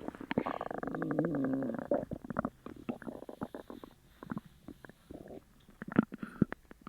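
Human stomach gurgling and growling: a long pitched growl for about the first two seconds, then a string of short popping gurgles that thin out, with two sharp pops near the end. The sounds of an upset stomach after sugar-free gummies.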